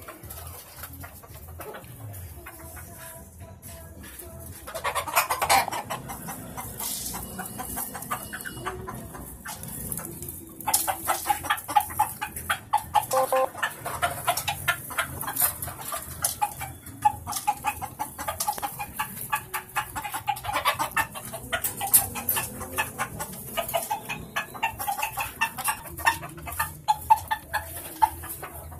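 Chickens clucking in a run of short, repeated calls, busiest from about ten seconds in.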